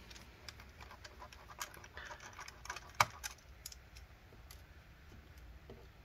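Faint clicks and scraping of a small screwdriver turning a screw out of a laptop motherboard, with one sharper click about three seconds in.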